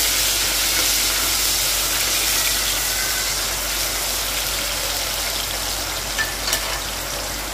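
Sliced onion, tomato and green chilli sizzling in hot oil in an open aluminium pressure cooker, a steady hiss that slowly eases off, with a couple of faint clicks near the end.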